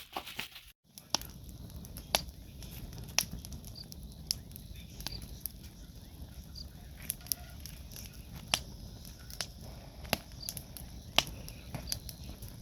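Wood campfire crackling: sharp, irregular pops about once or twice a second over a steady low rumble of wind and flames.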